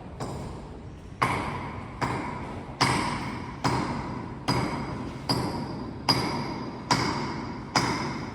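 A ringing, bell-like hit repeating evenly a little more than once a second, each one sounding the same and dying away before the next.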